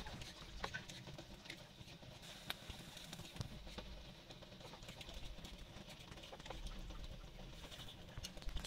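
Pieces of raw chicken dropped by hand into a stainless-steel pot of hot water: faint scattered plops, small splashes and light ticks.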